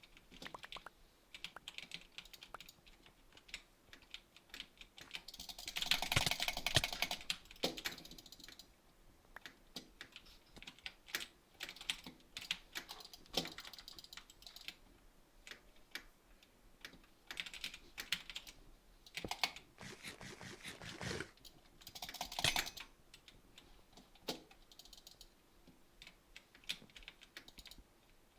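Irregular runs of quick, sharp clicks and taps, with dense louder flurries about six seconds in and again around twenty-two seconds.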